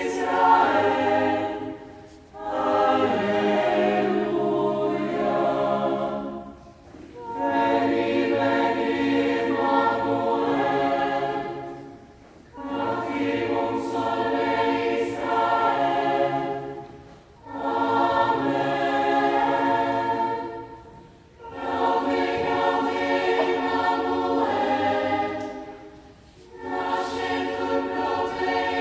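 A Lucia choir of young voices singing a hymn together, in phrases of about four to five seconds with short breaks for breath between them.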